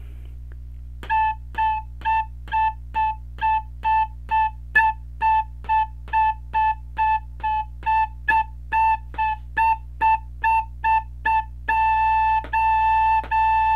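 White plastic recorder playing a single note over and over in short, evenly spaced eighth notes, about two a second, to read out a 4/4 rhythm exercise. Near the end it changes to a few longer held notes of the same pitch.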